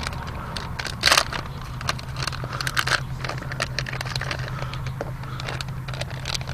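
Small clicks, rattles and plastic crinkling as fishing tackle and its packaging are handled, with a louder rustle about a second in, over a steady low hum.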